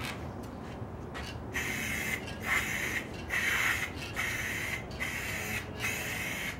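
Aerosol spray can of lacquer, worked with a trigger grip, spraying in a string of short hissing bursts about half a second each with brief pauses between them.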